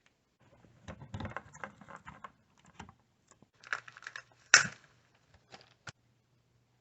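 Hands unboxing and handling the Amazon Echo Show 8 and its packaging: irregular rustling and small clicks, with one sharp, loud snap about four and a half seconds in.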